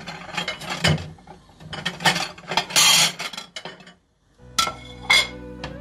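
Dishes and a kitchen cupboard clattering as a serving plate is taken out: a series of sharp knocks and clinks, with a longer rattling clatter near the middle. The sound stops briefly about four seconds in.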